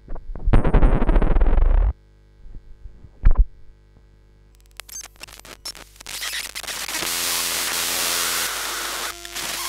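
Raw output of an electromagnetic pickup coil: a loud crackling buzz for about a second and a half as a metal disc is lifted out of the coil, then a short burst a little after three seconds. From about five seconds, scattered clicks turn into a steady static hiss with faint steady hum tones as the coil picks up the electromagnetic field of a PocketBook e-reader.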